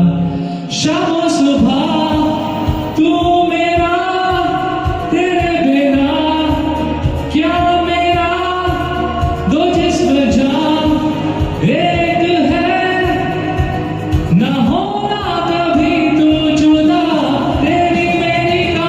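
Hindi film-song karaoke music with a wordless sung melody carried in repeated gliding phrases over the backing track.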